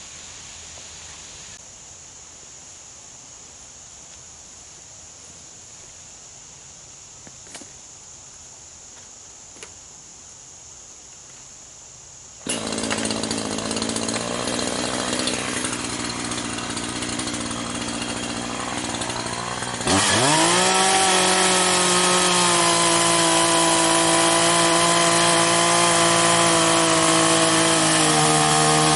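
A steady high insect drone with a couple of small clicks. About twelve seconds in, a chainsaw starts suddenly and runs. About twenty seconds in, it revs quickly up to full throttle and holds there, its pitch dipping slightly near the end, as it makes the back cut in a heavily leaning tree trunk.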